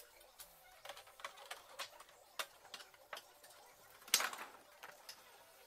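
Faint, irregular clicks and taps of a plastic cover plate being handled and fitted onto a Eumig R2000 film projector's housing, with one louder knock about four seconds in as the plate seats.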